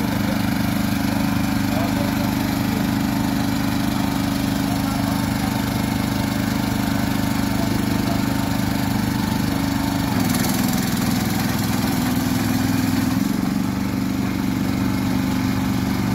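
Small engine of a tracked micro excavator running steadily as the machine is operated; its note changes about ten seconds in and again a few seconds later.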